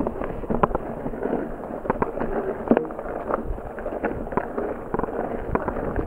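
Mountain bike rolling along a dirt singletrack: steady tyre noise with irregular sharp clicks and knocks as the bike rattles over bumps.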